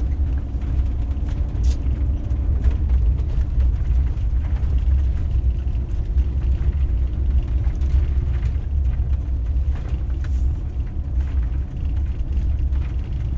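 Steady low rumble of a camper van driving slowly, heard from inside the cab.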